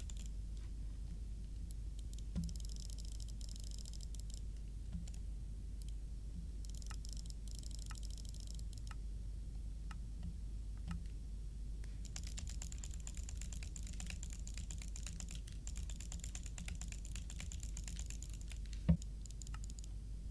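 Fast runs of small clicks, like typing, with single clicks between them and one louder knock near the end, over a low steady hum.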